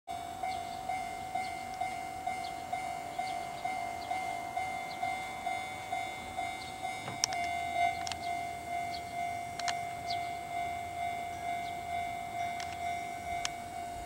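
Japanese railway level-crossing alarm bell ringing its repeated electronic chime, about two strikes a second. The bell is sounding because a train is approaching the crossing.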